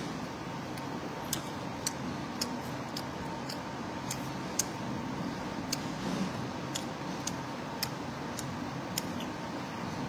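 A person chewing food close to the microphone, with small wet mouth clicks about twice a second, over a steady background hum.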